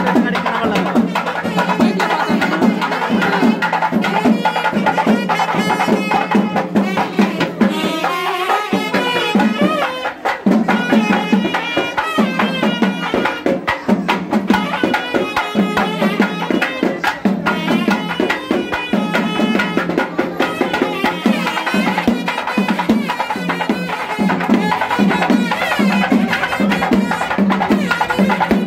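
Traditional South Indian festival music: rapid, dense drumming with a pitched melody line over it, with crowd voices under it.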